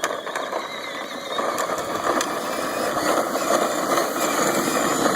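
Battery-powered ride-on toy skid steer, rewired to 12 volts, driving: its small electric drive motors and gearboxes whir with a rattle, getting a little louder about a second and a half in.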